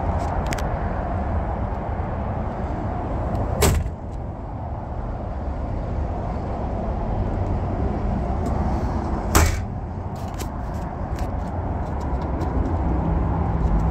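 Two sharp slams of a motorhome's exterior compartment doors being shut, about four and nine seconds in, over a steady background rumble, with a few lighter latch clicks near the end.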